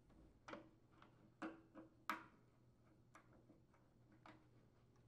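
Faint, scattered clicks and ticks, about six of them, the strongest about two seconds in: a Phillips screwdriver working the terminal screws of an electric water heater's heating element as its wires are detached.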